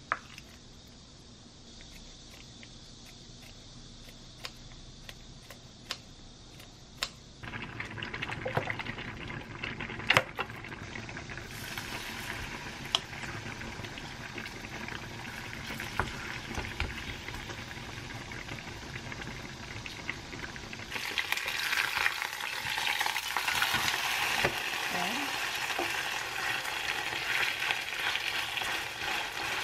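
Chive pancake batter being mixed in a glass bowl, with a few sharp clinks against the glass. Then the batter sizzles as it fries in a small oiled pan, the sizzle growing louder and brighter about two-thirds of the way through.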